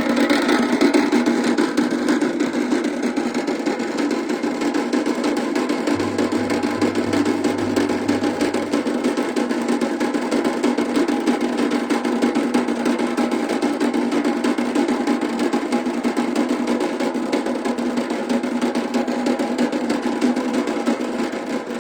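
Rapid, dense drumming in a continuous roll, played steadily and stopping abruptly near the end.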